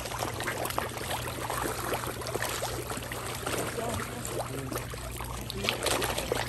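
A packed crowd of large fish churning and gulping at the water's surface while being fed, a steady wash of many small, quick splashes.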